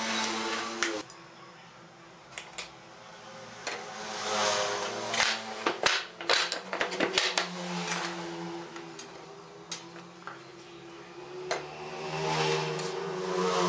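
Pine boards knocked and shuffled against a wooden workbench, making a cluster of sharp wooden clacks midway. A pen scratches lines along a steel square twice, with a steady low hum underneath.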